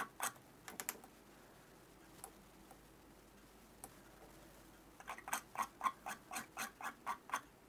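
A tool raking across the wraps of a dry-burned vape coil on a rebuildable deck: runs of light, rapid clicks, about five a second, in the first second and again from about five seconds in, with near silence in between while the coil is fired. Raking after the settle-in burn evens out the spacing of the wraps.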